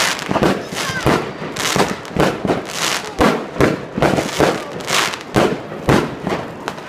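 Fireworks going off in a rapid string of sharp bangs, about two a second.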